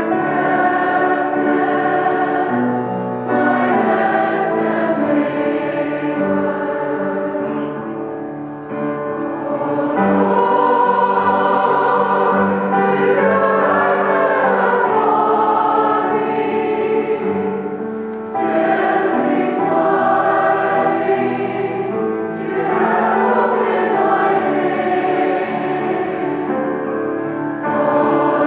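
Choir singing a hymn together, in sustained phrases a few seconds long with brief breaks between them.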